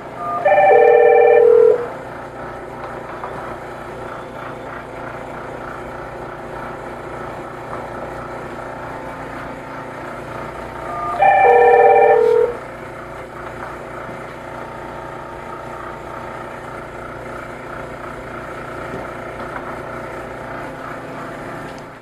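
Electronic ring tone of a call placed from a SIP video door phone's one-touch call button, sounding twice: about a second in and about eleven seconds in, each a short burst of a few steady notes lasting about a second and a half. A steady hum runs underneath.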